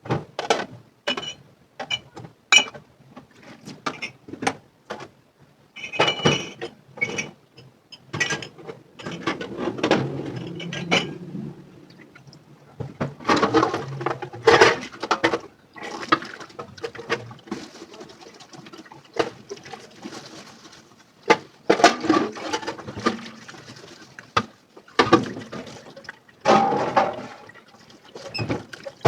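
Dishes clinking and knocking against each other in a sink, with stretches of splashing, running water in between.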